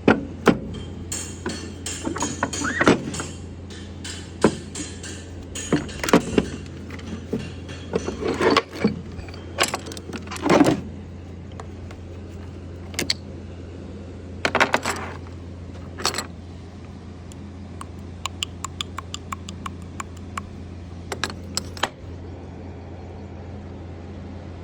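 Steel parts and hand tools clinking and knocking irregularly as a Kawasaki K3V112DT hydraulic pump is taken apart, with a run of quick light clicks near the end, over a steady low hum.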